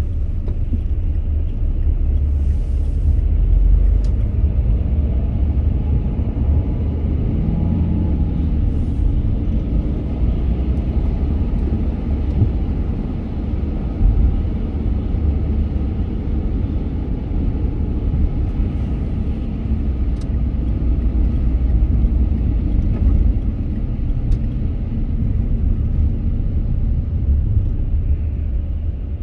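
A moving car: a steady low rumble of engine and tyre noise, with a brief knock about fourteen seconds in.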